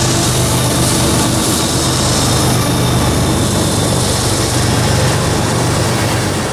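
Diesel freight locomotives working under power: a steady low engine drone over a haze of wheel and rail rumble, fading out near the end.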